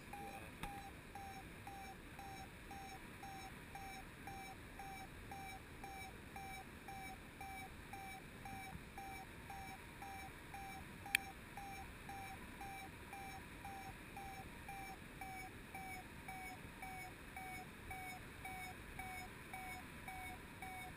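Paragliding variometer beeping steadily, about two short beeps a second at one pitch, the tone it gives while the glider is climbing. A single sharp click about eleven seconds in.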